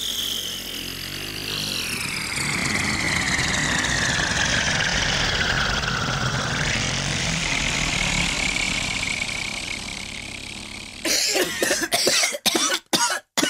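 A long, heavy cartoon elephant fart sound effect: a loud rumbling blast with a hiss that slides down in pitch, held for about eleven seconds. It then breaks up into a run of short sputters.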